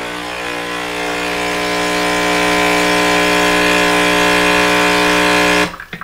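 Breville Nespresso Creatista Plus's pump buzzing steadily as it runs a ristretto-sized dose of hot water through the empty brew head, with a hiss over the hum. It grows a little louder over the first couple of seconds and cuts off suddenly near the end as the dose finishes.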